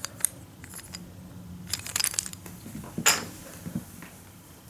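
Wooden toy train engines being handled and set down on a wooden floor: a scatter of light clicks and clacks, a quick cluster about two seconds in and the sharpest one about three seconds in.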